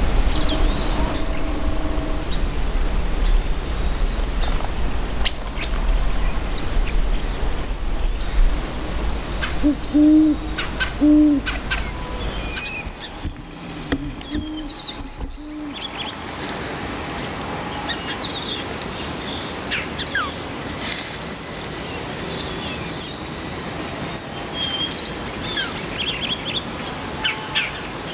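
An owl hooting: a series of short, low hoots about ten seconds in and a few more a few seconds later, with small songbirds chirping faintly in the background.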